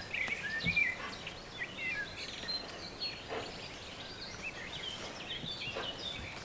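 Small birds chirping and singing in many short, quick high notes over a steady background hum, with a few faint knocks.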